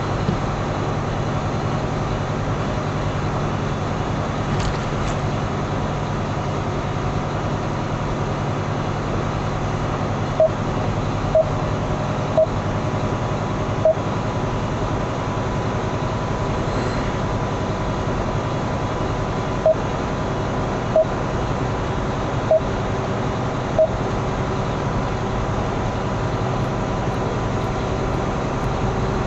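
Steady engine and road noise inside a truck's cab driving on a snow-covered highway. A set of four short beeps, about a second apart, comes about a third of the way in, and another set of four about two-thirds in.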